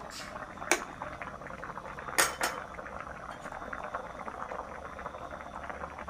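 Coconut-milk green curry with pork and eggplant bubbling steadily as it boils in a pan. A metal ladle clinks against the pan a few times in the first two and a half seconds.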